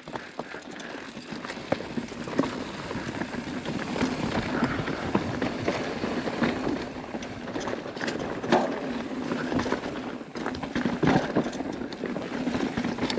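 Mountain bike rolling fast down a rocky, gravelly singletrack: tyres crunching over loose stone, with frequent sharp clatters and knocks as the bike rattles over rocks.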